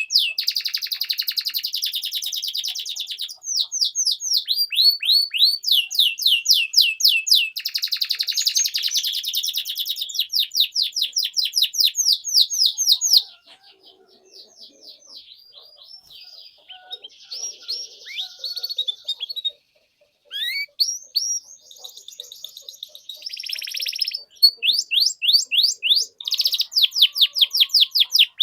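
Domestic canary singing a long, full-voiced song of fast repeated high chirps and rolling trills. In the middle comes a quieter stretch of softer, scattered notes, then the rapid trills start again.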